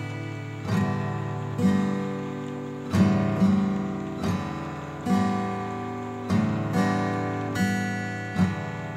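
Slow, gentle acoustic guitar music: chords struck roughly once a second, each left to ring and fade.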